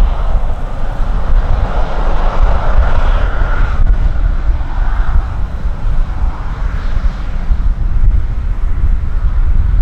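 Twin CF34 turbofans of an Embraer 190 jet running as it taxis and turns away, a steady jet whine and rush that swells and fades. Heavy wind rumble on the microphone underneath.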